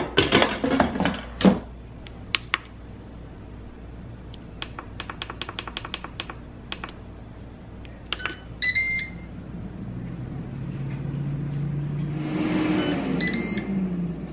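An air fryer being loaded and started. A tray clatters as it goes in, and a quick run of button clicks sets the time. The control panel beeps, and the fan motor starts up with a hum that builds near the end.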